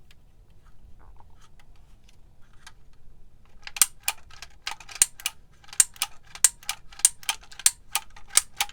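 Manual embossing label maker working through a label: faint ticks of the character disc being turned, then from about three and a half seconds in a rapid run of sharp clicks, about three a second, as the handle is pressed again and again to stamp characters into the label tape.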